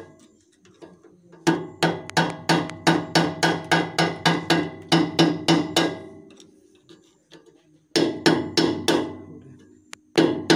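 Rapid metallic strikes, about four a second, of a screwdriver driven against the large nut on a VST Shakti 130 DI power tiller's rotary bearing housing. The nut is being tapped round to tighten it, in place of a wrench. There is a long run of blows, a pause, a shorter run, and a single blow near the end.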